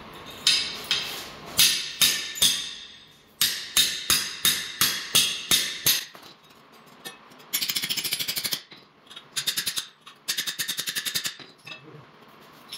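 A hammer striking a flat pry bar wedged under a cracked floor tile: about a dozen sharp, ringing metal blows in the first six seconds, then three bursts of rapid, even tapping. The tile is not coming loose under the hammering.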